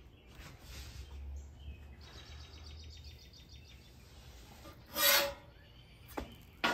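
Quiet outdoor background with a faint rapid series of ticks, then a short scrape of a metal spatula against the steel flat-top griddle about five seconds in.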